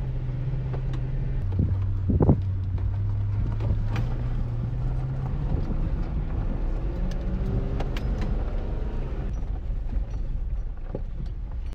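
Off-road vehicle heard from inside the cabin while driving a rough dirt trail: a steady low engine drone that drops in pitch about a second and a half in, with a few knocks and rattles from the rocky track.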